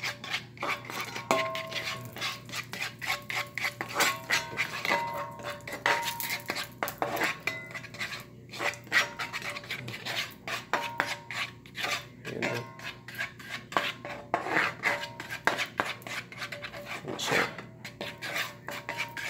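A utensil scraping, rubbing and clinking against a cast iron skillet as oil is spread around the pan, with many quick scrapes and brief metallic rings.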